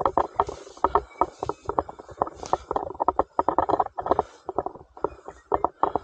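Close, muffled rustling and crackling, many irregular clicks a second, from a carried camera on a walk through grass and scrub.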